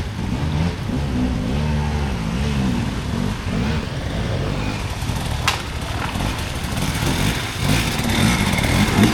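Dirt bike engine running and revving, its pitch rising and falling in a few swells.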